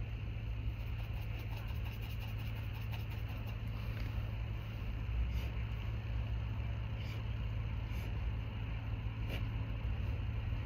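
Steady low electrical hum and room noise, with a few faint scratches from a paintbrush working oil paint on canvas.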